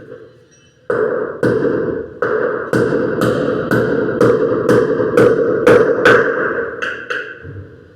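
Repeated hammer blows, about two a second, over a steady noise. The hammering starts suddenly about a second in and stops shortly before the end.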